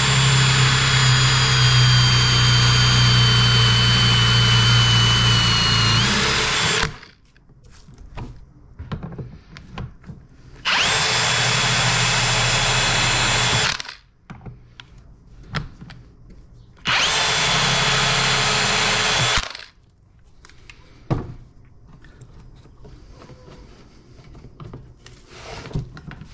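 A power drill driving a Hettich multi-spindle hinge-boring jig, boring 35 mm cup hinge and screw holes into a wooden cabinet door. It runs in three bursts: one long run of about seven seconds, then two shorter runs of about three seconds each, with light clatter of the jig being handled in between. In the long first run the whine sags in pitch as the bits cut and rises again just before it stops.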